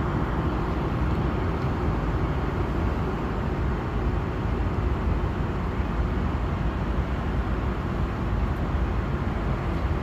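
Steady rush of cabin noise inside an Airbus A330 airliner: engine and airflow noise, deep and unchanging.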